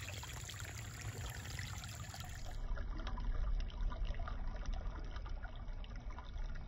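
Shallow rocky creek trickling over stones, a steady water sound.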